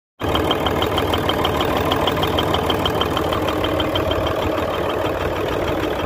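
Hino J08C inline six-cylinder diesel truck engine running steadily, with a rapid, evenly spaced ticking over the engine note.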